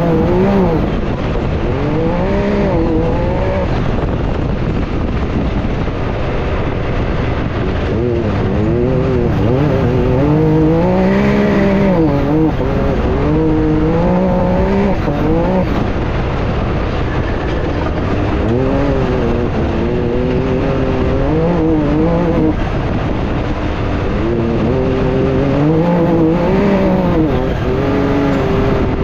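Can-Am Maverick X3's turbocharged three-cylinder engine at full race pace, heard from inside the open cab: the revs climb and drop again and again as the throttle is opened and lifted. Under it runs a steady rush of tyres on the dirt track and wind.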